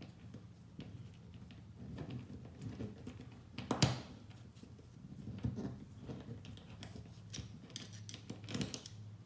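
A rifle mount clamp being handled and positioned on a rigid MOLLE panel: scattered clicks and light knocks, with one sharper knock about four seconds in and a run of clicks near the end. A low steady hum runs underneath.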